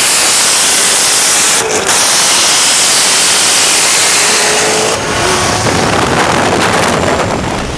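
Cars running flat out side by side: a loud, steady rush of wind noise over the engine sound, picked up from a car moving at speed alongside.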